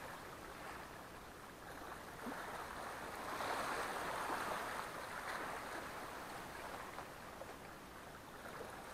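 Small Black Sea waves washing against the shore, a soft rushing that swells and ebbs and is loudest a few seconds in.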